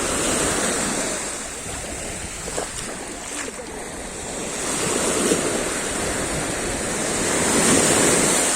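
Mediterranean Sea surf: waves washing in, dropping back a little and then swelling louder again near the end.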